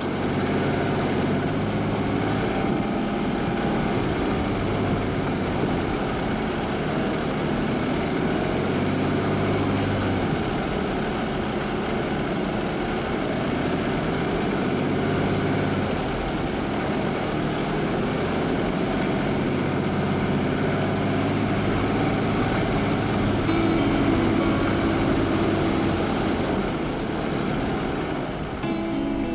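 Jeep's engine running steadily while driving, a continuous low engine hum.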